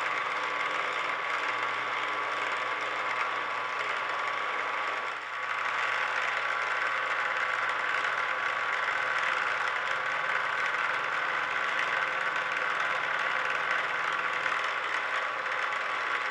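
CNC mill spindle driving an end mill across brass bolster stock, milling the face flat: a steady machining whir and hiss with a few held tones, dipping briefly about five seconds in.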